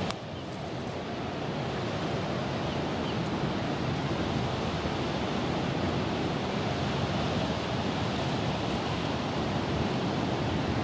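Steady rush of surf breaking on a rocky, boulder-strewn shore, mixed with wind; it dips briefly just after the start and builds back.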